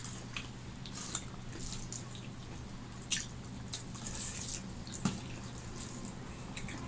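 Eating rice and curry by hand from steel plates: scattered soft wet clicks and smacks, about one every second, over a steady low hum.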